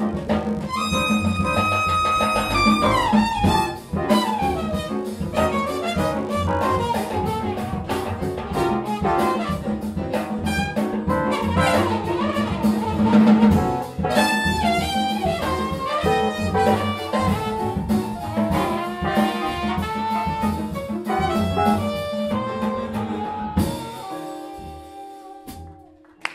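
Jazz big band playing, with brass and saxophones over a drum kit and a high brass note held for about three seconds near the start. Near the end the music thins out and fades.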